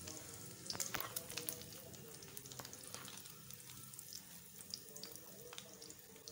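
Hot oil sizzling faintly in a frying pan around scraps of fried egg, with scattered sharp pops and crackles of spitting oil, a little busier about a second in.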